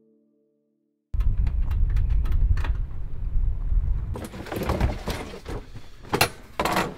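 Silence for about a second, then a loud low rumble with scattered clicks. After that come knocks and clatter as a folding table is handled and moved around inside a bus, with two sharp knocks near the end.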